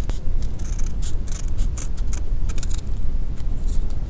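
Irregular crinkling and rustling of thin adhesive strips being handled and pressed onto a phone's frame, over a steady low rumble.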